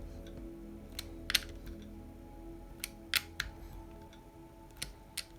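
Soft background music under a handful of sharp small clicks and taps of hardware and tools on the plastic-and-metal wheel assembly of a Tamiya RC car as a rear wheel and flange nut are seated.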